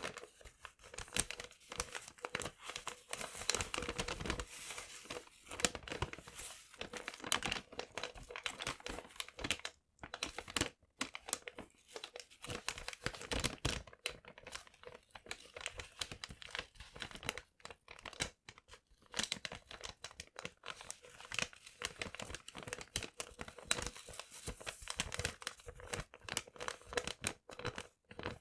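Paper being crumpled and crinkled close to the microphone, a dense crackling rustle with short pauses about ten and eleven seconds in.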